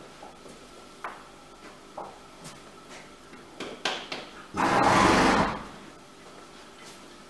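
Light taps and scrapes of a horse being groomed, then, a little past the middle, a loud rushing burst lasting about a second.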